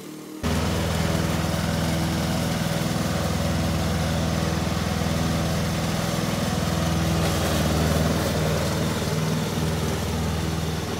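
Husqvarna ride-on lawn tractor's engine running steadily, cutting in abruptly about half a second in.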